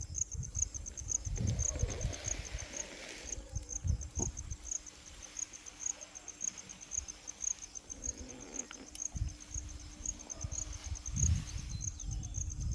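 An insect chirping steadily in a high, even pulse, about three chirps a second, with irregular low rumbling on the microphone.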